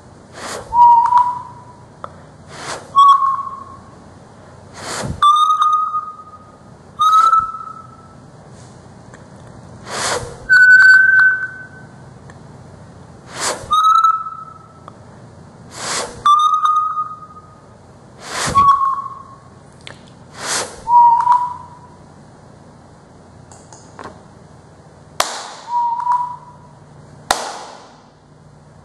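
About a dozen short sharp sounds into a sound sensor, each answered by an electronic beep from an Arduino sound-activated lamp. Each beep lasts about a second. Its pitch marks the lamp's brightness level, rising over five steps and then stepping back down.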